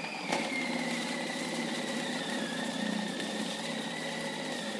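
Countertop food processor running at high speed with its shredding disc, grating a block of cheese. The motor gives a steady whine that drops slightly in pitch about a second in, with a single knock just after the start.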